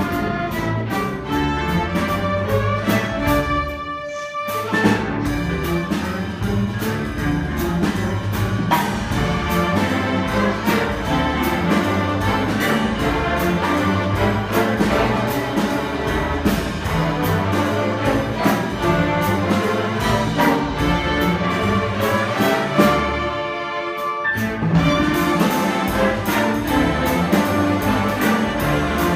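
School string orchestra with guest soloists playing an arrangement at full volume with an even, driving pulse. The music thins to a brief break about four seconds in and again about 24 seconds in, then comes back in.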